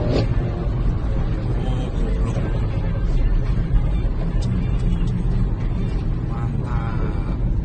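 Steady low rumble of road and engine noise heard inside the cabin of a car driving along a highway.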